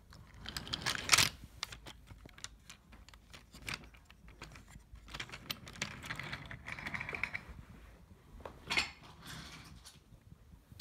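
Wooden toy subway train pushed by hand along wooden toy track: a run of irregular light clicks and rattles from its wheels on the track, the loudest about a second in and near the end.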